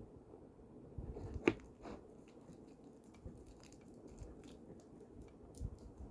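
Slime being worked in a container: scattered small sticky clicks and squishes, with one sharper click about one and a half seconds in.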